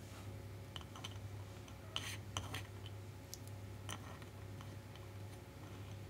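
Scattered, irregular plastic clicks and clacks from the keycaps and keys of an RKS98 mechanical keyboard being handled, with a few sharper ones about two seconds in, over a low steady hum.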